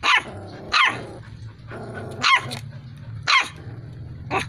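Dalmatian–Askal cross puppy barking: about five short, high-pitched yaps roughly a second apart, each falling in pitch, over a faint low steady hum.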